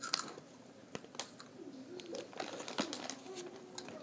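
Light handling clicks and crinkles while children eat, with two short, soft hummed 'mm' sounds from a child in the second half.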